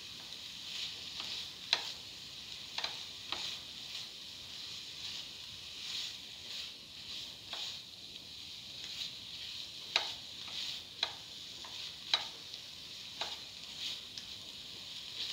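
A spatula stirring and scraping ground coconut paste with tomato as it sautés in a frying pan. A steady sizzle runs throughout, broken by irregular sharp clicks of the spatula against the pan.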